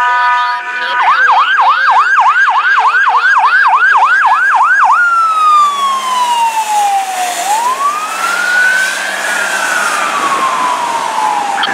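Fire brush truck's horn and electronic siren. It opens with a steady horn blast, switches about a second in to a fast yelp of nearly three cycles a second, then around five seconds in to a slow wail that falls, rises and falls again.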